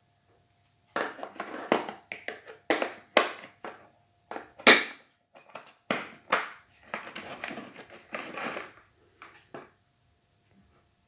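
Irregular rustling, crackling and knocking of things being handled, in a quick uneven run of bursts that stops near the end.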